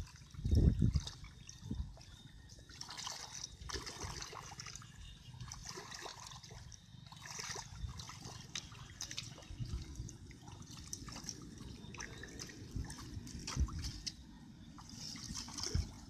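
Water trickling and splashing in small irregular clicks and dribbles, with one heavy low thump about half a second in.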